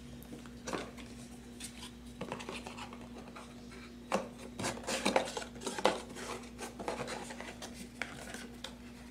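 Cardboard packaging and small plastic parts being handled: irregular scraping, rubbing and light clicks as a cardboard insert is pulled out of the box and the box's flaps are opened, busiest in the middle.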